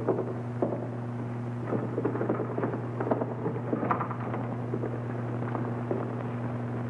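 Scattered knocks and bumps over a few seconds, heard over the steady electrical hum of an old film soundtrack.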